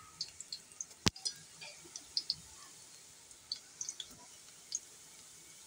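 Hot oil crackling and popping in small scattered ticks as cumin seeds go into lightly browned onions in a steel pot, with one sharp click about a second in.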